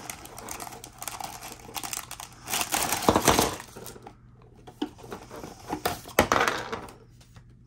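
Cardboard LEGO box being pulled open and sealed plastic bags of bricks crinkling as they are tipped out onto a table, in several bursts of rustling, the loudest about three and six seconds in.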